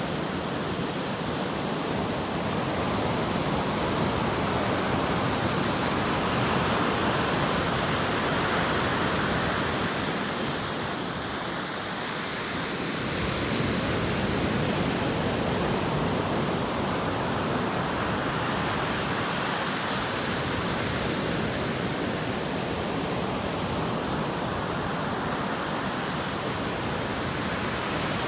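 Ocean surf breaking and washing ashore, a continuous wash of noise that swells and ebbs slowly, dipping a little about halfway through.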